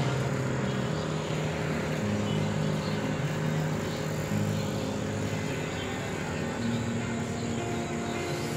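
Road traffic at night: a steady hum of vehicle engines and tyre noise, with low engine drones swelling and fading as cars pass.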